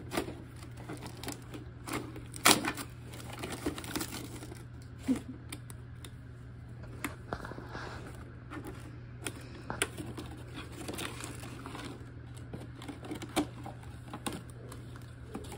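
Irregular light clicks and knocks of small plastic playset pieces and packaging being handled, with the loudest knock about two and a half seconds in, over a steady low hum.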